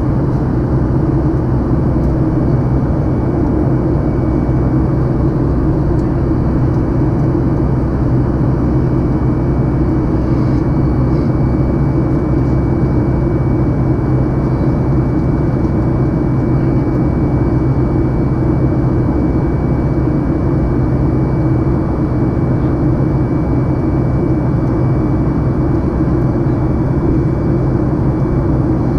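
Boeing 737 MAX cabin noise in flight, heard beside the wing: a loud, steady rush of its CFM LEAP-1B engine and airflow, heaviest in the low range. A faint steady high whine joins it about twelve seconds in.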